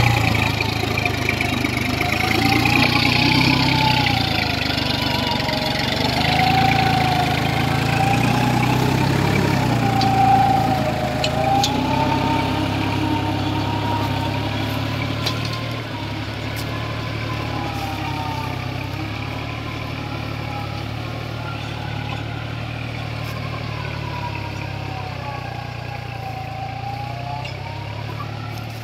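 New Holland 4710 tractor's diesel engine running steadily under load while it pulls a mouldboard plough through soil. A high whine rises and falls over it throughout, and the sound grows somewhat quieter about halfway through.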